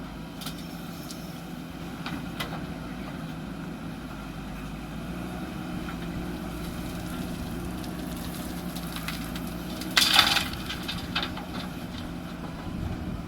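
Backhoe loader's diesel engine running steadily, with a few light knocks and a brief loud clatter about ten seconds in.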